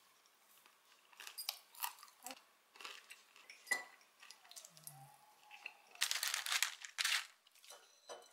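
Scattered light clinks of cutlery on small plates, then about six seconds in a loud crinkling of the parchment paper lining the pan of fried chicken wings as a piece is taken, lasting about a second.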